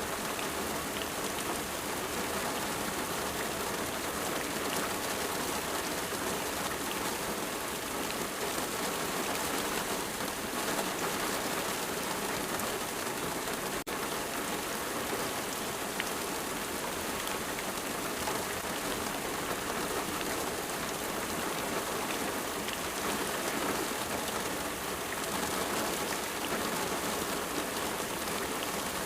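Steady, dense rain falling, an even hiss of many drops, with one brief click near the middle.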